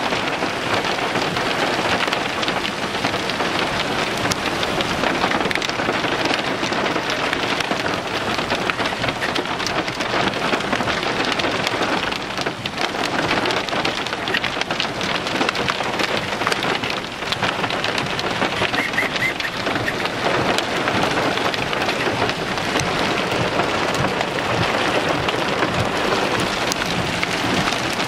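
Small hailstones falling heavily: a dense, steady clatter of countless tiny impacts.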